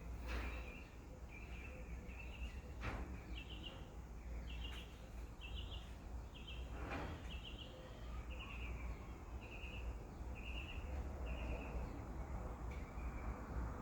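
A bird chirping faintly over and over, each call a quick little trill of a few notes, about one every second, over a low steady rumble. A few soft knocks come near the start and about seven seconds in.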